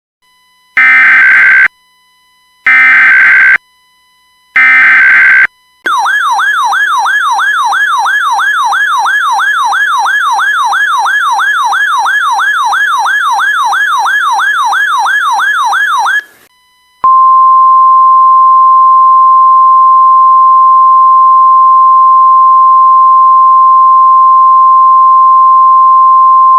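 Emergency Alert System tones for a tornado warning: three short bursts of SAME header data tones, then an electronic siren, a RadioShack 12-996, rapidly sweeping up and down for about ten seconds. It ends with the steady 1050 Hz NOAA Weather Radio warning alarm tone held for about ten seconds.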